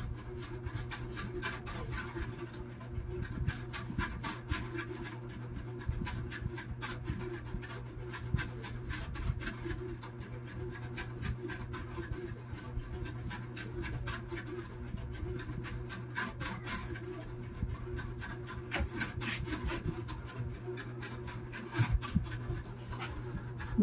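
Hands handling a solar panel's cable and connector: steady rubbing and scratching with many small clicks, over a low steady hum.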